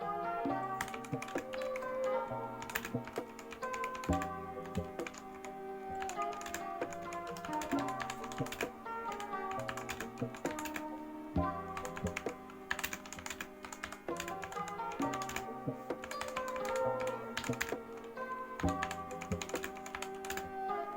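Fast, continuous typing on a Redragon K606 Lakshmi 60% mechanical keyboard with red switches, a rapid irregular run of key clicks. Background music plays under it.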